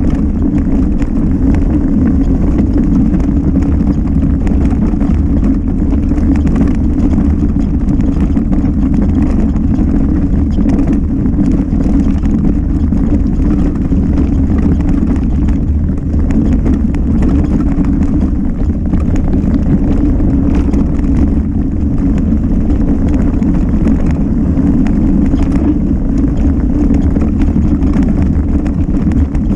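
Mountain bike descending a rough trail at speed: wind rumbles steadily on the microphone, with the frequent small rattles and knocks of the bike over the ground.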